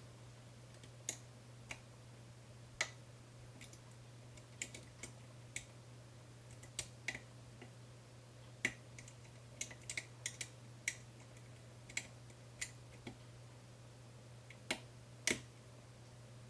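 Small metallic clicks and ticks of a lock pick working the pins of a Medeco cam lock under tension, irregular and spaced from a fraction of a second to over a second apart, about two dozen in all. A steady low hum runs underneath.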